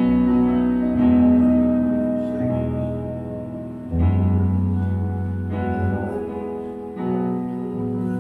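Live band playing an instrumental passage on keyboard and guitar: held chords that change every second or two over a moving bass line.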